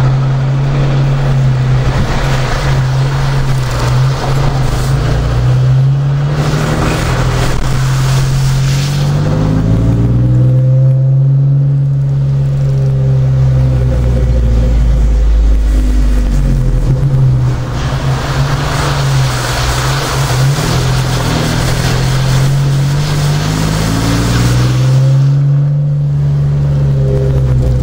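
A car engine runs while the car drives slowly, its pitch rising and falling several times as it speeds up and slows. It is heard with stretches of hiss from tyres rolling through standing floodwater.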